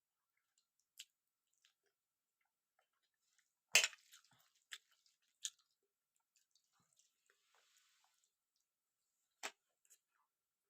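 Faint eating sounds from someone eating rice, dal and vegetables: a few scattered sharp clicks and smacks, the loudest about four seconds in, and another near the end.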